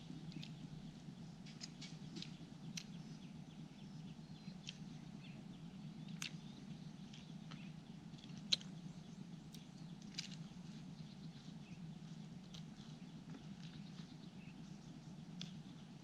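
A person chewing and eating close to the microphone: irregular wet mouth clicks and smacks over a steady low hum, with one louder click about halfway through.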